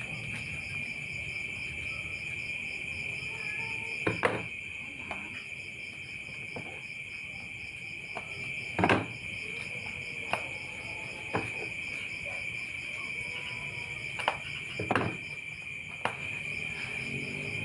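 Insects trilling steadily, a continuous high buzz with a faster even pulsing above it. A few short knocks and handling sounds come through, the loudest about 4 and 9 seconds in.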